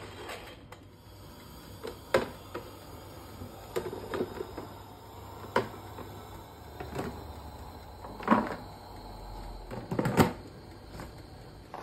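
Scattered knocks and clatters of kitchen utensils and containers being handled, a few seconds apart, over a low room hum.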